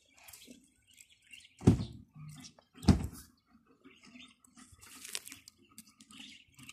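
Two dull knocks about a second apart, with light scratching and rustling around them.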